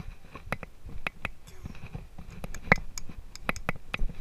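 A horse being ridden on sand: irregular sharp clicks and rattles of tack and gear jostling, over low, uneven thuds of its movement.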